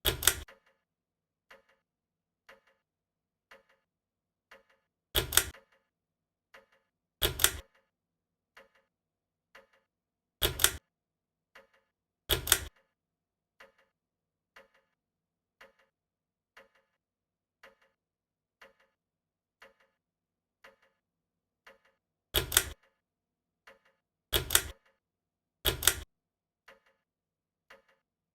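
Harbor Breeze Glenwood ceiling fan running, with a faint tick about once a second and, at irregular intervals, a louder rattling clunk lasting about half a second.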